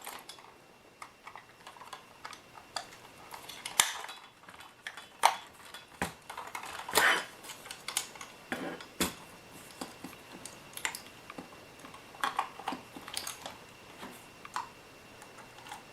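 Irregular light clicks and taps of hands working on a mostly die-cast metal RC loader's battery compartment, with small hard parts knocking against the metal body.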